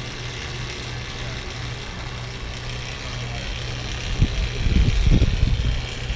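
A steady low hum, then from about four seconds in, loud irregular gusts of wind buffeting the microphone.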